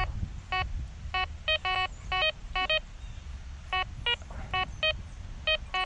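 GreenRex metal detector beeping as its search coil is swept over a buried target: about fifteen short electronic beeps in irregular runs, switching between a lower and a higher pitch, with a pause of about a second midway. The beeps are the detector's target-ID tones signalling metal under the coil.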